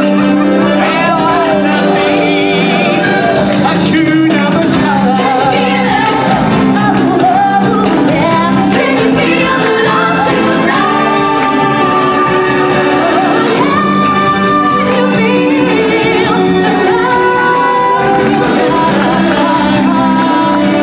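Stage-show music, with voices singing over held notes of the accompaniment, playing loudly and without a break.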